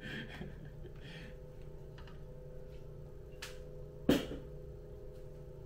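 A steady low hum with a few faint light clicks, and one sharp knock about four seconds in.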